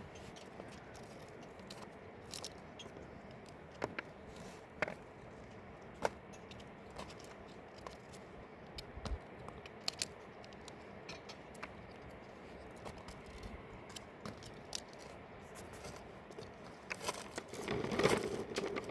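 Scattered small clicks, taps and scrapes, irregularly spaced over a faint steady background hiss, growing louder and busier near the end.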